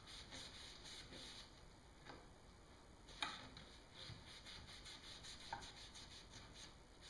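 Near silence: faint rubbing and a few light ticks of hands wiping glue squeeze-out from a clamped wooden rail joint, with one sharper tick about three seconds in.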